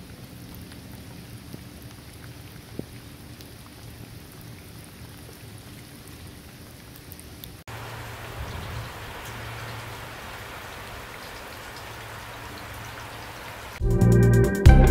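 Steady rain falling on wet pavement; about seven and a half seconds in it switches abruptly to a closer, brighter patter of heavy rain splashing on the ground. Near the end, loud music starts.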